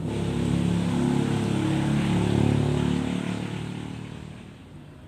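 A motor vehicle engine running with a steady low hum, fading away after about three seconds.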